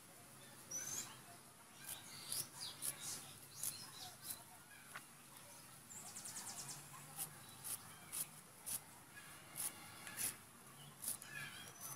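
Fresh white radish being sliced into sticks against a fixed upright metal blade: a string of short, crisp cutting snaps at an irregular pace, roughly one or two a second. Now and then a bird chirps, with a fast high trill near the middle.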